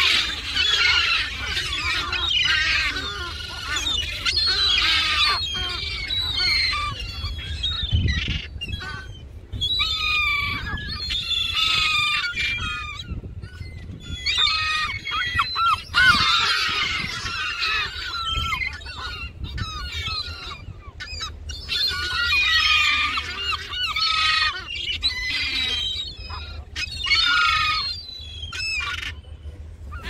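A flock of gulls calling over food in a dense, overlapping clamour of squeals and yelps. The calling comes in surges a few seconds long, with brief lulls between them.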